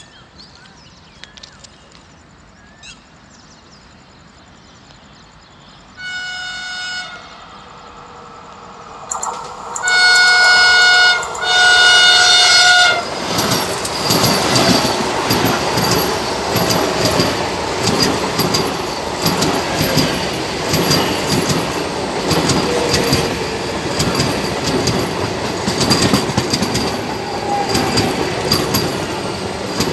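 Vande Bharat Express electric trainset sounding its horn as it approaches: a short blast about six seconds in, then two long blasts. It then passes at full speed with a loud, steady rush of wheels on rail and a rapid clatter of the wheels over the rail joints.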